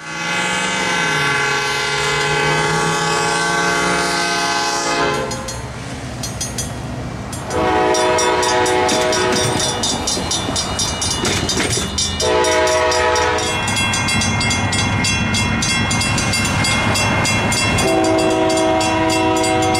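Locomotive air horns sounding at railroad grade crossings: four separate chord blasts, the first and longest lasting about five seconds. Between and under them come the rapid, even ringing of crossing-signal bells and the rumble and clatter of trains passing.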